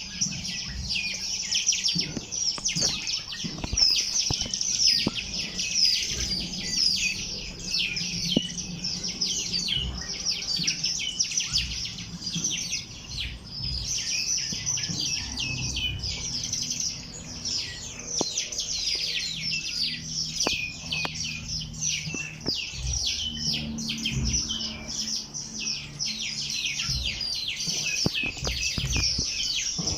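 A dense chorus of many small birds chirping and twittering without pause, rapid overlapping high-pitched notes, with a faint low rumble underneath.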